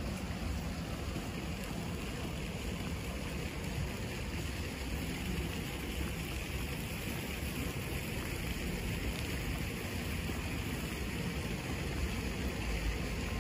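Steady outdoor street ambience: a constant low rumble with an even hiss over it and no distinct events.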